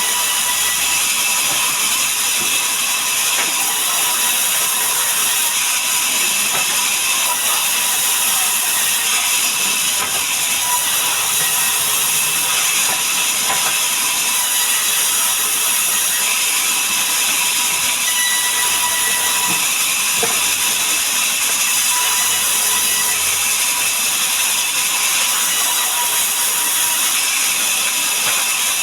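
Sawmill saw running through a mahogany log: a loud, steady, high-pitched hiss of machinery with a faint constant whine, unbroken throughout.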